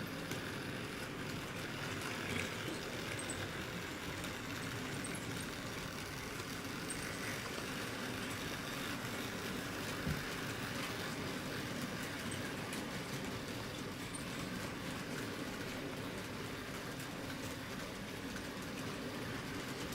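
HO-scale model train, a Fleischmann class 50 locomotive pulling a long string of tank cars, running steadily on track: a continuous rolling rumble of wheels on rails with small clicks, and a single slightly louder tick about ten seconds in.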